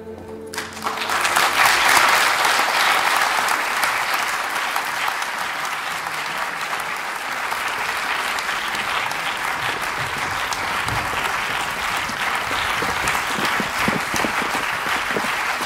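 Theatre audience applauding at the end of a performance. The applause breaks out about half a second in as closing music dies away, swells quickly to its loudest and then carries on steadily.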